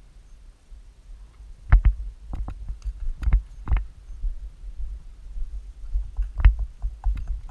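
A series of irregular dull thumps with sharp clicks, several coming in quick pairs, loudest about two seconds in and again from about six seconds on.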